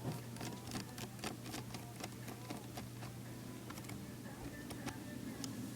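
Scattered small clicks and light taps of laptop display parts being handled during a screen removal, over a steady low hum.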